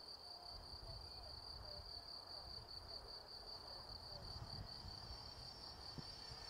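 Crickets trilling steadily in a high, finely pulsed chirr, faint, over a low rumble of wind on the microphone.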